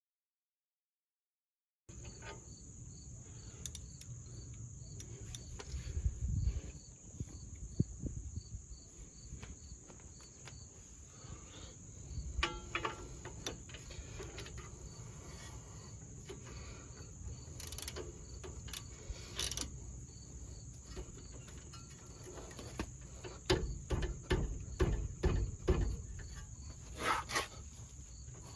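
Insects trilling steadily outdoors, with a faint regular chirp pulsing through it. Scattered knocks and clatters sound over it, busiest near the end. The sound starts after about two seconds of dead silence.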